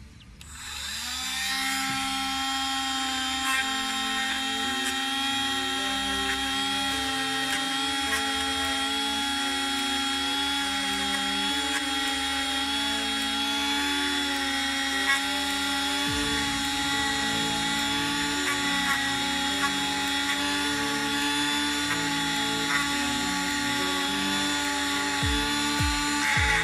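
Dremel rotary tool spinning up over about a second, then running at a steady whine as its bit scours rust from the chambers of an old revolver cylinder.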